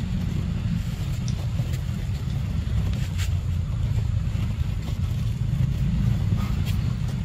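Wind buffeting the microphone: a steady low rumble, with a few faint short clicks and rustles.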